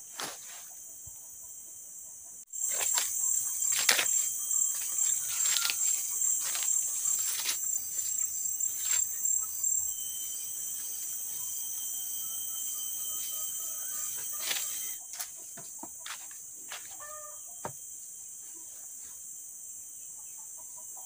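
Forest ambience: a loud, steady, high-pitched insect drone that cuts in a few seconds in and stops about fifteen seconds in. Under it are scattered knocks of wooden poles being handled and a chicken clucking.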